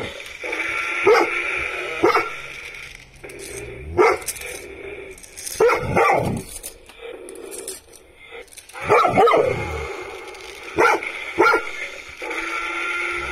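Cane Corso puppy play-barking at a toy, about eight sharp barks spread out singly and in pairs, with longer whiny calls between them and a drawn-out one near the end.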